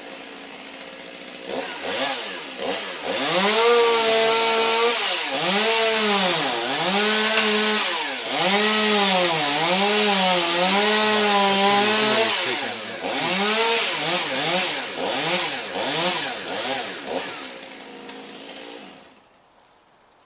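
Gas chainsaw cutting through a dead tree trunk, its engine pitch repeatedly sagging as the chain bites into the wood and climbing back between strokes; it runs for most of the stretch and then stops near the end.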